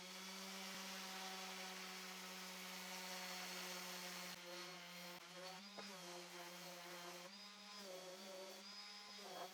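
Electric sander fitted with 150-grit sandpaper running with a faint, steady buzzing hum. Its pitch dips briefly a few times in the second half, as the tool is worked against the wood.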